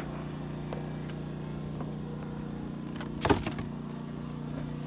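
Steady hum of an engine running in the background, with a short loud burst of noise about three seconds in.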